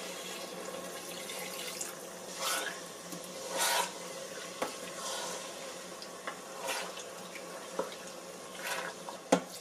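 Water poured from a cup into a pot of lamb curry, then a wooden spoon stirring the wet meat and sauce, with swishes and a few sharp taps against the non-stick inner pot.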